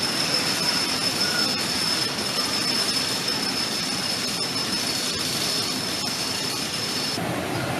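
Wooden roller coaster train running along its track: steady rolling noise with a thin high tone over it, cut off about seven seconds in.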